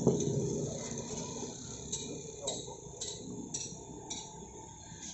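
Plastic takeaway bag being handled and twisted shut, with a knock at the very start and then a run of light, sharp ticks about twice a second from about two seconds in.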